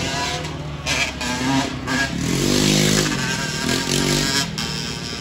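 Dirt bike engines revving, the pitch rising and falling in several long sweeps.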